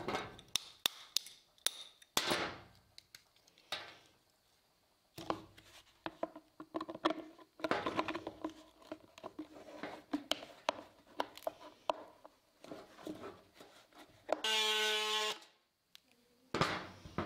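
Scattered knocks, clicks and handling clatter from hand work on a shop gutter, with a few short swishes. About fourteen seconds in, a buzzing tone lasts about a second and cuts off sharply.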